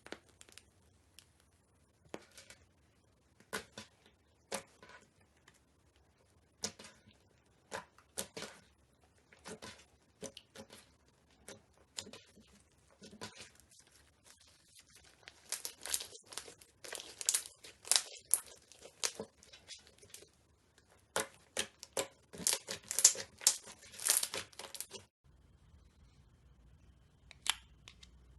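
Slime being squeezed and stretched by hand, making irregular sharp crackles and pops. They are sparse at first, then come thick and loud through the second half before breaking off abruptly near the end, with a few more pops after.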